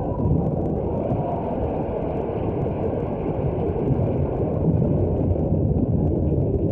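A steady, muffled low rumbling noise with no distinct events.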